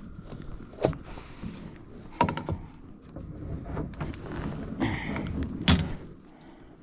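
A few separate knocks and thumps, a second or more apart, of fishing gear being handled in a kayak, with a short rustle just before the last knock.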